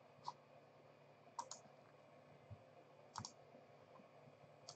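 Faint computer mouse clicks over near silence: four short clicks, two of them quick double clicks.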